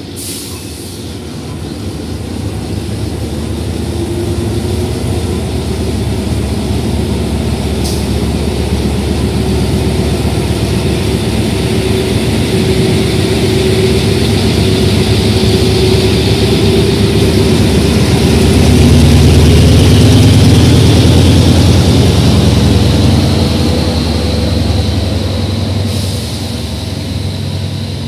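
Hitachi diesel-electric locomotive 4519 running as it departs and passes at close range. Its low engine rumble builds and is loudest about two-thirds of the way through, and a thin high whine joins in after the middle. Passenger coaches then roll past, with a few sharp clicks from the wheels on the track.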